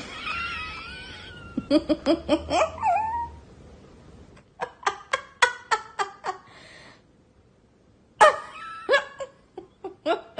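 An animal's calls: a wavering cry, a call that swoops down and back up about three seconds in, then runs of short repeated calls, with a sharp new call after a brief pause near the end.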